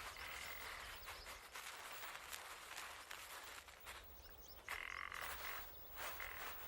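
Faint animal calls: a short call just after the start and a stronger, half-second call about five seconds in, over light clicking and rustling.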